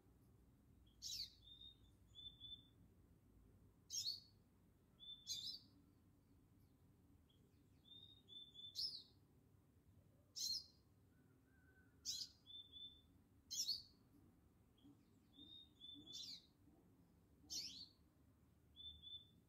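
A songbird calling over and over, about every one and a half seconds: each call is a sharp, very high note sweeping steeply downward, often followed by one or two short level whistles.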